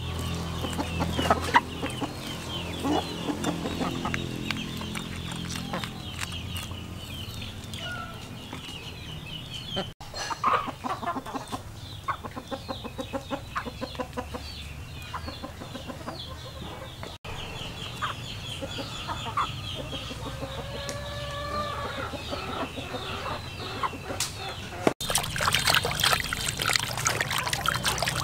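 Farmyard chickens clucking and calling, with steady high chirping behind them. In the middle comes a run of quick knocks, and near the end water splashes as a raw chicken is rubbed and washed by hand in a basin.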